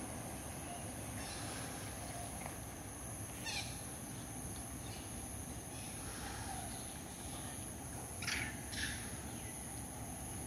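Steady outdoor background noise with a high constant hiss, broken by a few short, high, chirping animal calls; the two loudest come close together about eight seconds in.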